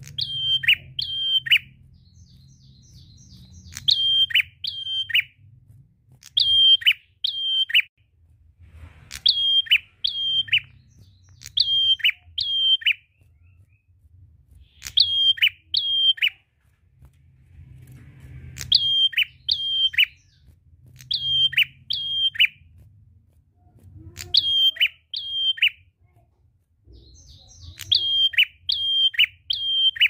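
Caged ashy tailorbird (prenjak) singing: loud phrases of two or three sharp notes, each dropping quickly in pitch, repeated every two seconds or so.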